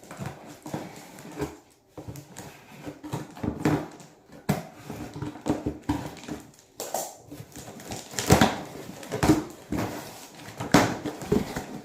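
Shoe delivery package being torn and pulled open by hand without scissors: irregular crinkling and rustling with sharp knocks and clicks.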